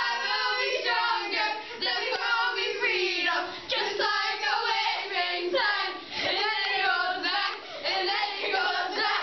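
A group of young voices singing together, high-pitched.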